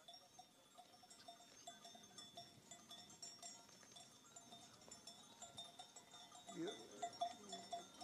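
Cowbells on walking cattle clinking faintly and irregularly. A short low rising-and-falling call comes about six and a half seconds in.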